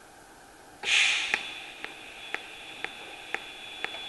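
A TIG welding arc on stainless steel strikes about a second in with a burst of hiss, then runs as a steady hiss with a thin high whine. A sharp tick every half second marks the current switching between 120 amps peak and 30 amps background, pulsing at one pulse per second.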